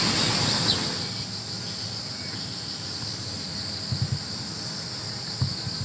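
Insects trilling steadily in a high, even drone, with a few soft low thumps about four seconds in and again near the end.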